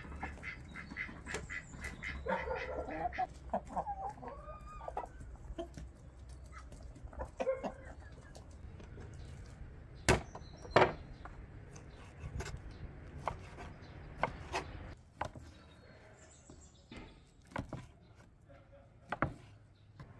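Chickens clucking and calling, with a quick run of clucks at the start. About halfway through come sharp knocks on a wooden cutting board, the two loudest close together, then scattered lighter knocks.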